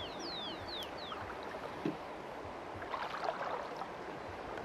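Shallow river water swirling and splashing around a wader's legs and hands as a tin is worked along the bottom, with a louder splashy patch about three seconds in. Five or six quick, high, falling whistles sound in the first second.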